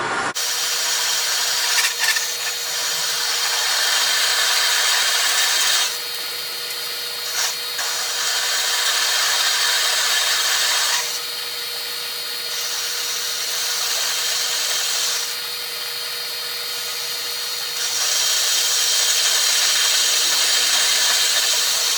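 Metal lathe boring steel with a boring bar. A steady hiss from the cut sits over the hum of the running spindle, growing louder and quieter several times as the tool squares off the drill-point taper at the bottom of the bore.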